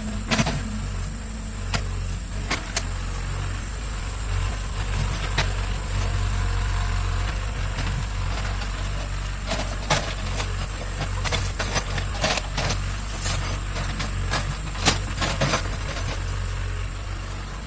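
Excavator diesel engine running steadily at a low rumble, with scattered sharp clanks and knocks from the machine working.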